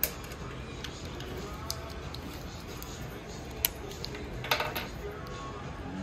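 Scattered light clicks and taps of hands handling a plastic turn-signal bulb socket and its wiring, with a sharper click at the very start and a short flurry of clicks about four and a half seconds in, over steady low background noise.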